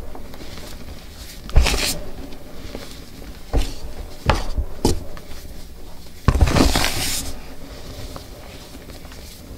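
Dyed gym chalk blocks crushed and crumbled by hand: a sharp crunch about a second and a half in, a few quick crunches around four to five seconds, and a longer crumbling crunch at about six to seven seconds, with faint crackle between.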